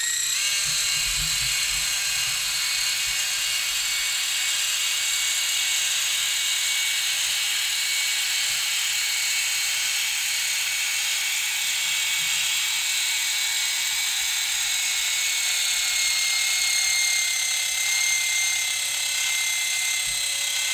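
Landing-gear retract servo on a 3D-printed quadcopter whirring in one long, steady run as it slowly drives the gear, powered at 5 volts and running much better than at 6 volts, where it rubbed. A high mechanical whine with a couple of fixed tones, starting abruptly.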